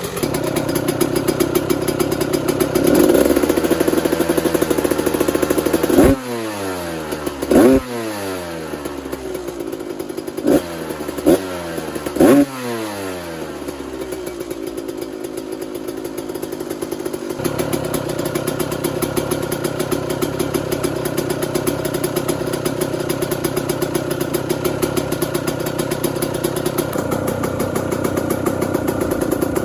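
Kawasaki KX125 single-cylinder two-stroke engine idling, warming up after a cold start. About five short throttle blips come between roughly six and thirteen seconds in, each rev falling quickly back to idle, and then it settles into a steady idle.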